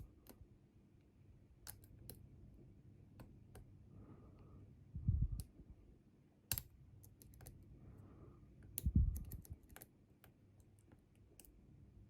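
Small metallic clicks and scrapes of lock-picking tools working inside a Bi-Lock cam lock, scattered irregularly, with two dull bumps of handling about five and nine seconds in.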